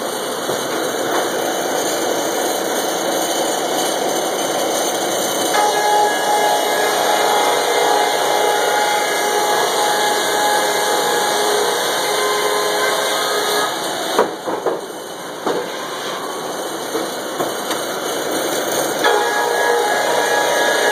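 Sawmill machinery running as cottonwood boards move through on the roller conveyors and chain deck: a steady loud mechanical din with a whining tone that comes in about a quarter of the way through. Near two-thirds of the way there is a brief lull with a few knocks, and the whine returns near the end.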